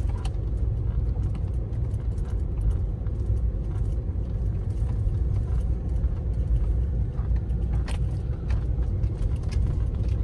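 Car driving: a steady low rumble of engine and road noise, with faint scattered ticks and rattles.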